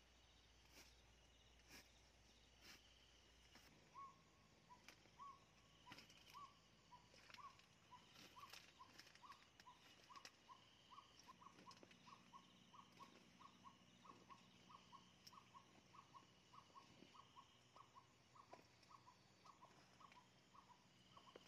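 Faint night sounds: an animal calling a long run of short, clipped notes, about two to three a second and quickening, starting a few seconds in, over faintly pulsing crickets. A few faint ticks come in the first seconds.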